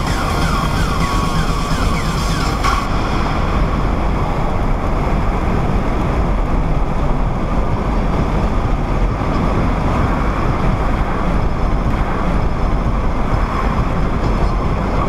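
Steady low drone of a pickup at highway speed heard from inside the cabin: tyre roar, engine and wind noise with no breaks. Over the first three seconds a faint pattern of short rising tones sits on top of it.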